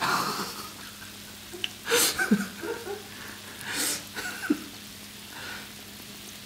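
Churros deep-frying in a pot of hot oil: the oil sizzles and bubbles, with bursts of crackling about two seconds in and again near four seconds, over a faint steady hum.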